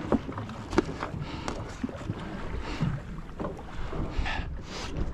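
Wind buffeting the microphone and sea washing around a small boat's hull on a heavy swell, with a few light knocks.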